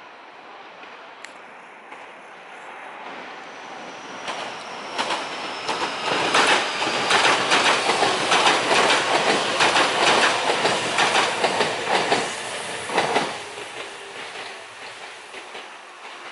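A train passes on the adjacent track. It builds over a few seconds, its wheels clatter rapidly over the rail joints, and then it fades away.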